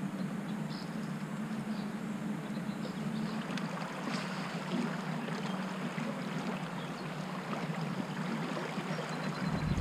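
Water lapping and rippling around a fishing kayak's hull over a steady low hum. Just before the end a low rumble of wind on the microphone comes in.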